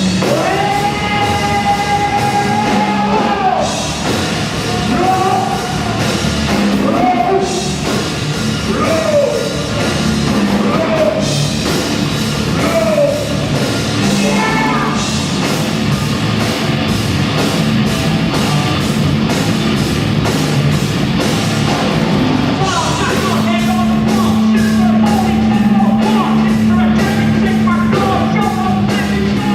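Rock band playing with a lead singer: sung lines, one note held for about three seconds near the start, over guitar, bass and drums with cymbals.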